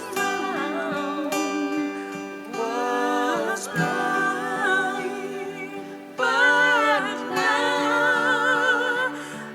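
Worship song: voices singing held notes with vibrato in phrases over instrumental accompaniment.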